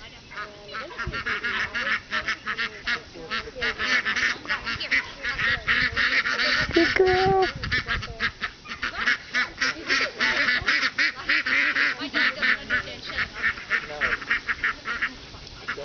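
A flock of ducks quacking continuously, many calls overlapping in a rapid chatter as the flock is moved along.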